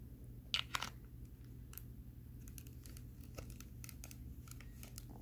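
Light clicks and scrapes of hard plastic as the tail piece of a Jurassic World Roar Attack Metriacanthosaurus figure is pushed and twisted into its socket in the body, with two sharper clicks about half a second in. It is a stiff fit: the tail is hard to get in.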